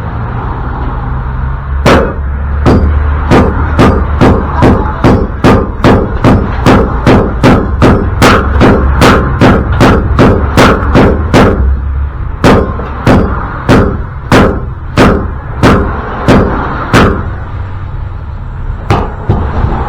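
Steady series of hand hammer blows ringing on steel, about two or three a second for some fifteen seconds with a brief pause midway, then a few more near the end, over a steady low hum. These are blows struck to knock a stuck wheel bearing retaining ring on a Toyota pickup axle loose.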